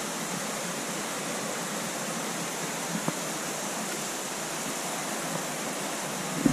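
Steady rushing of a river flowing over rocks, with one faint click about three seconds in.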